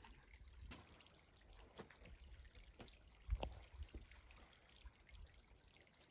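Faint footsteps on rock and loose stones: a few scattered clicks and scrapes, the loudest about three seconds in, over a faint low rumble.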